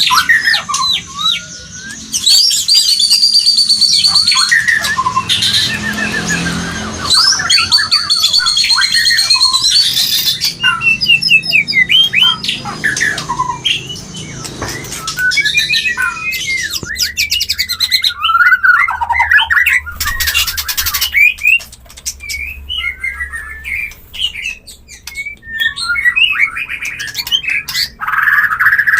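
White-rumped shama (murai batu) singing a fast, varied song of whistled notes, slurs and rapid trills, with a quieter stretch about two-thirds through. It is the shama's mating call, used as a lure to bring a pet shama into breeding condition.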